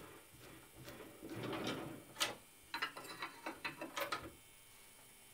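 A 6 mm tap in a hand-turned drill press chuck cutting a thread into a steel square tube and backing out again: quiet scraping creaks with several sharp clicks. It stops a little over four seconds in.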